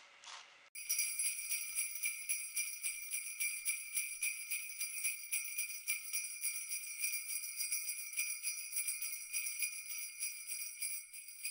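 Sleigh bells jingling in a fast, steady shaking rhythm, starting abruptly just under a second in.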